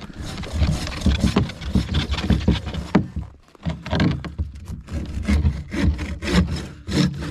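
Bow saw rasping back and forth through a frozen moose heart in repeated strokes, pausing briefly about three and a half seconds in.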